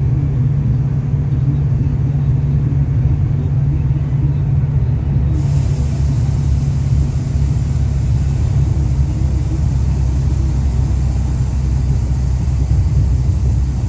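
Diesel engine of an Agrale-chassis Volare V9L minibus running at a steady speed under way, a low drone heard from inside the cabin. About five seconds in, a steady high hiss joins it and stays.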